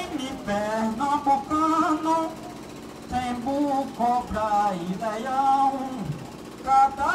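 Men singing a maracatu melody into microphones, with held notes and slides between them.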